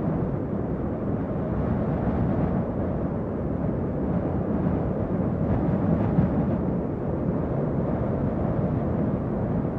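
Steady low rumbling noise with no clear pitch.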